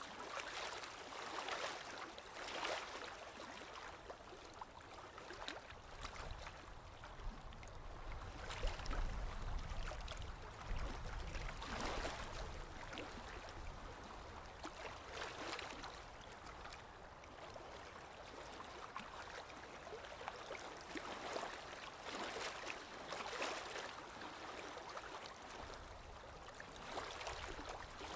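Running water flowing and splashing unevenly, with irregular little splashes. A low rumble rises under it for a few seconds about a third of the way in.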